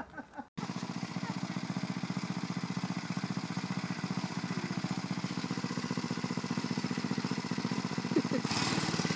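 Small go-kart engine running at idle with a fast, even putter, getting louder near the end.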